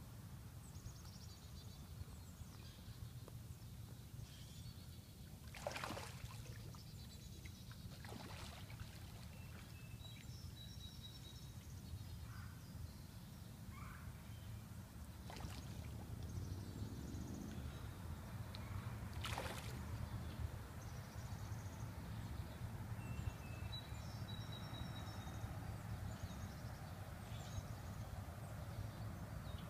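Carp splashing in shallow floodwater, four brief splashes spread across the stretch, over a low steady outdoor rumble with small birds chirping now and then.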